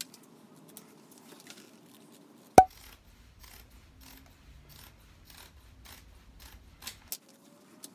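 Scissors snipping through a sheet of rubbery non-slip mesh drawer liner, as a run of short, crisp cutting clicks. One sharp, much louder click comes about two and a half seconds in.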